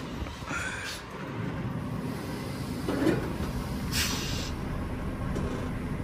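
Semi truck's diesel engine running low and steady as the rig backs up, with two short hissing bursts, one about half a second in and one about four seconds in, and a dull thump around three seconds.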